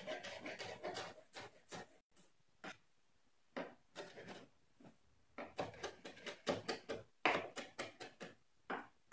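Knife chopping fresh cilantro on a cutting board: a quick run of blade knocks, about four a second. The knocks thin to a few scattered ones for a couple of seconds about two seconds in, then resume densely.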